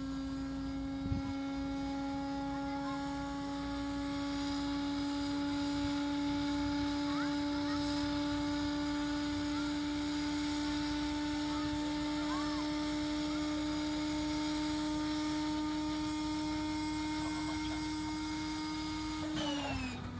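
Antonov An-2's electric inertia starter winding up: a steady whine that rises slowly in pitch, then drops suddenly near the end as the starter is engaged to crank the nine-cylinder radial engine.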